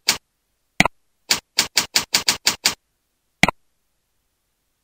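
Computer keyboard and mouse clicks: a single mouse click about a second in, a quick even run of about eight keystrokes, then one more mouse click a little past three seconds in.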